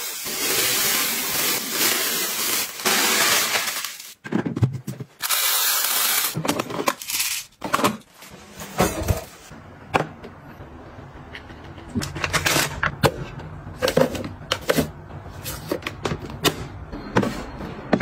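Dry rice pouring from a bag into a clear plastic grain dispenser, a steady loud hiss that stops about four seconds in, followed by a couple of shorter rushes. After that come many sharp plastic clicks and taps as a plastic storage box and its lid are handled.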